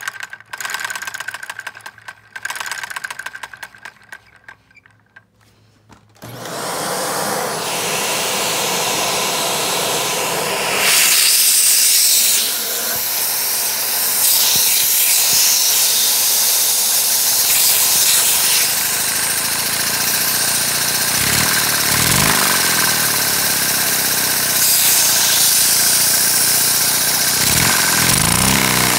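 A LEGO vacuum engine, driven by a vacuum cleaner's suction, run at full throttle: after a quieter few seconds of light rattling, a loud rushing of air comes in about six seconds in and gets louder a few seconds later. The engine's drone falls and rises in speed a couple of times near the end.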